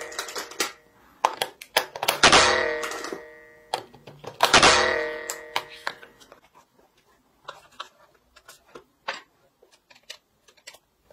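Acoustic guitar chords strummed and left to ring out, twice, about two and four and a half seconds in. After them come small scattered clicks and taps of plastic parts being pressed together and a screw being turned.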